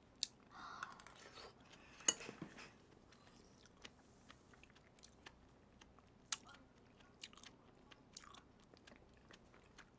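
Faint close-miked chewing of a spoonful of porridge: soft mouth noises with a scatter of small wet clicks, one sharper click about two seconds in.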